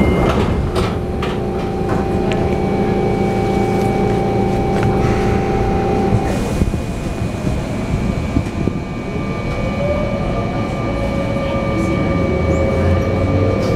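Interior sound of a Sotetsu 8000 series train car at a station stop. A steady hum stops about six seconds in as the doors shut. From about nine seconds in, the Hitachi IGBT-VVVF inverter and traction motors whine, rising in pitch as the train starts to pull away.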